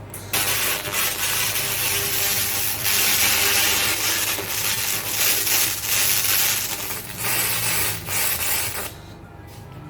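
1000 W laser cleaning machine firing at a metal surface: a loud, flickering crackling hiss that starts suddenly just after the start and cuts off about a second before the end, over a steady low hum.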